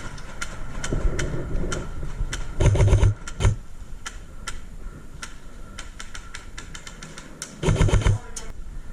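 Airsoft guns firing: scattered sharp clicks of single shots throughout, with louder buzzing bursts of rapid fire about two and a half seconds in, briefly again a second later, and near the end.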